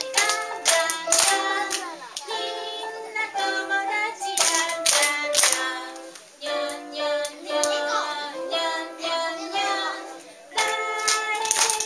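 A children's song sung by female and children's voices, with hand claps in time with the singing.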